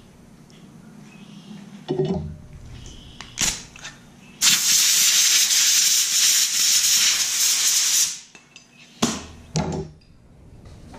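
Air die grinder running for about four seconds: a loud, steady hiss of air that starts and stops abruptly. A few knocks of metal tools being handled come before and after it.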